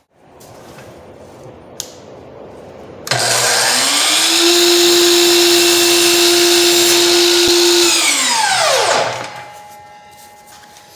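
Miter saw cutting crown molding at a 22.5-degree miter: the motor spins up about three seconds in, runs at a steady high whine through the cut for about four seconds, then is released and winds down with a falling pitch. A light click comes just before the start.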